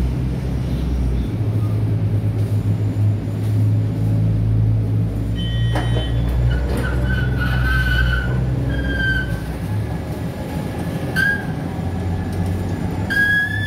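The Star Ferry's engines run with a steady low drone that shifts pitch about a second in. From about halfway, high wavering squeaks and two sharp clanks come as the steel boarding gangway is lowered onto the ferry.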